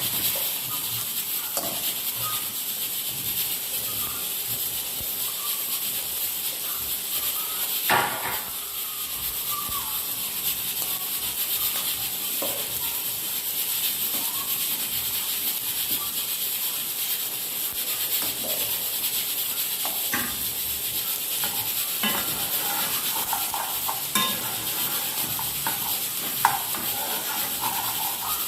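Food sizzling steadily in a hot pan, with occasional knocks and scrapes of a utensil stirring it.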